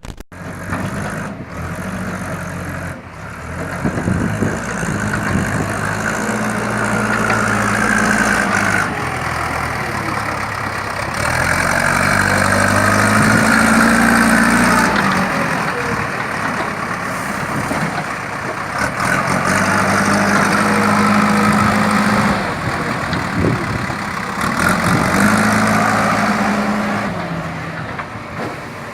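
JCB 3DX backhoe loader's four-cylinder water-cooled diesel engine working under load, revving up and dropping back about every six seconds, with a whine that rises along with each rev.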